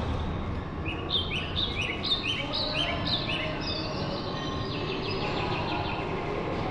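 A songbird singing a quick series of repeated downward-sliding notes, about four a second for a couple of seconds, then a fainter run of notes. Under it there is a steady low background rumble.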